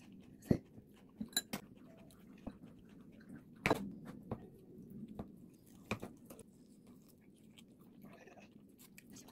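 Close-miked eating: cold bibim-myeon noodles slurped and chewed, with several short sharp mouth clicks and smacks, the loudest a little before the middle.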